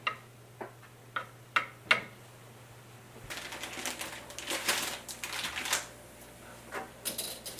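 Kitchen handling sounds: a few sharp, separate taps and clicks, then about three seconds of dense clattering and rustling, and a couple more clicks near the end.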